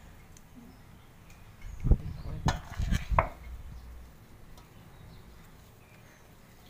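Hands pressing crumbly churi into balls in a steel bowl: a short cluster of dull thumps and light knocks about two seconds in, lasting a second and a half, with quiet room tone before and after.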